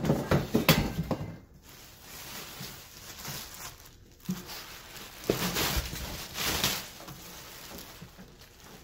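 Clear plastic bag crinkling and rustling as it is pulled off a plasma cutter. It comes in two louder spells, through the first second or so and again about five to seven seconds in, with quieter handling in between.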